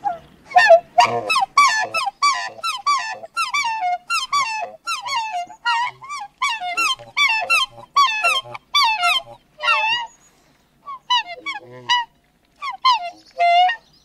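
Two black swans calling at close range: a rapid run of high, bending calls, about two a second, with deeper notes among them. After about ten seconds the calls thin out into a few scattered ones.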